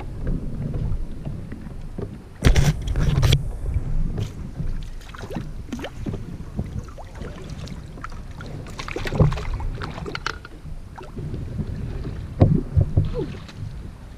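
Knocks and clatter of people shifting about in a small fishing boat, over a steady low rumble of wind on the microphone; the loudest knocks come about two and a half seconds in, near nine seconds and near the end.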